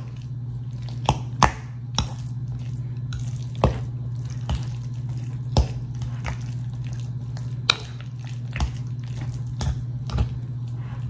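A metal fork mashing boiled potatoes in a glass bowl, clinking sharply against the glass about once a second at uneven intervals, over a steady low hum.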